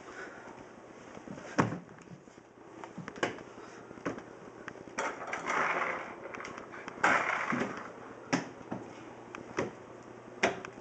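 Scattered sharp knocks and thuds of hands and objects on a hardwood floor, about eight in all. Around the middle there are two short bursts of rustling noise.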